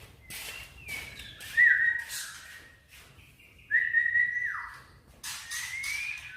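White-rumped shama singing: clear whistled phrases with harsh, hissy notes between them. The two loudest phrases come about one and a half and four seconds in, each ending in a falling slur, and a rising whistle follows near the end.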